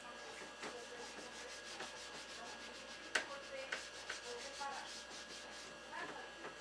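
Scrubbing the plastic inside of a refrigerator with detergent: quick back-and-forth rubbing strokes, several a second. One sharp knock comes about three seconds in.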